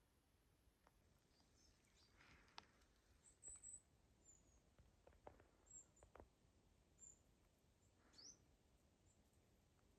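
Near silence with a few faint, very high, short bird chirps, about a second apart, and a couple of soft clicks.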